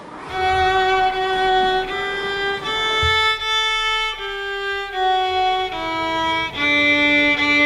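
Violin playing a slow melody of long bowed notes, one after another, stepping lower in the second half.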